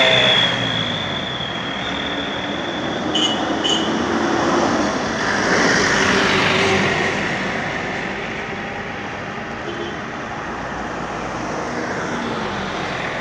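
Road traffic on a city street: a steady rush of passing vehicles that swells as one goes by about five to seven seconds in, then eases. Two short high chirps a little after three seconds in.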